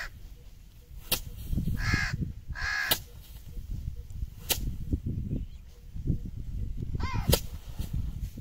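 Bundles of harvested rice stalks beaten by hand against a wooden threshing log, four sharp thwacks a second or two apart with the rustle of straw and shaken grain between them. A bird calls harshly a few times in between.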